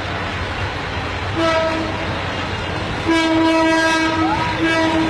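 Locomotive horn on a passing train, sounding over the steady rumble of the train running: one short blast about a second and a half in, then a longer blast from about three seconds in, broken briefly near the end.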